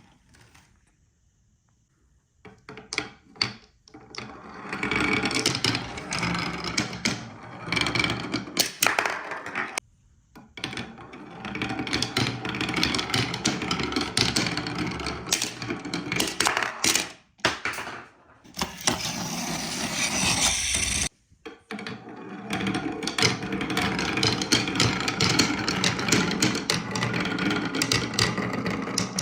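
Marbles rolling and clattering down a wooden marble-run track, with many sharp clicks and knocks as they hit and drop. It comes in several long runs with brief pauses between them.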